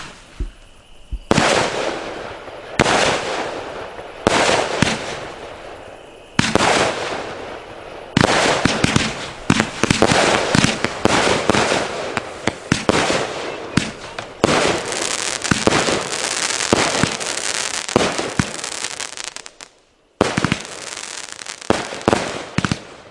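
A Pyro Demon 'Exit Strategy' 500-gram, 34-shot fan cake firing. Shots launch and break a second or two apart at first, then come in a rapid barrage of reports about eight seconds in. After a brief pause near the end, a few last shots go off.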